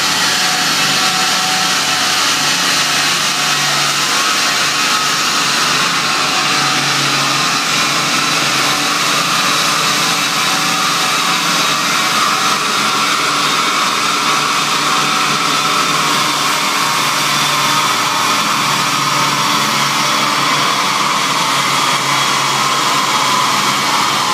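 Subaru Impreza WRX's turbocharged flat-four running at a steady speed on a chassis dynamometer, its wheels turning the rollers. The result is a loud, even whirring and rushing noise that holds without revving up or down.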